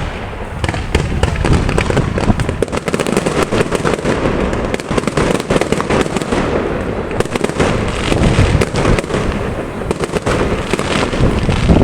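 Aerial fireworks display: a continuous barrage of low booms from bursting shells with dense crackling between them.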